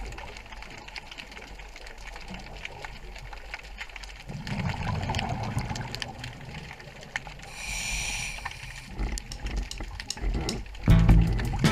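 Scuba diver breathing through a regulator underwater. A rumbling burst of exhaled bubbles comes about four seconds in, a hissing inhalation through the regulator follows around eight seconds, and another exhalation burst comes near the end, with small clicks throughout.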